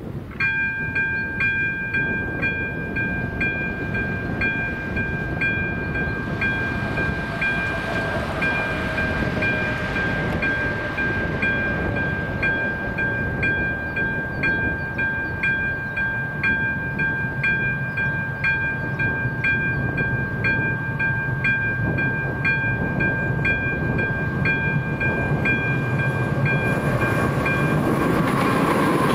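Electronic warning bell of an AŽD 97 level-crossing signal sounding: a steady ringing tone with a regular pulsing beat that starts about half a second in as the crossing activates. Under it, the rumble of an approaching train grows and gets louder near the end.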